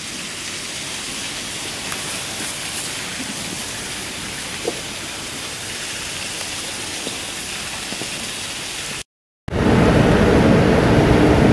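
Steady hiss of street ambience on a wet day. A sudden cut about nine seconds in brings a much louder noise with a steady low hum, from riding down an escalator.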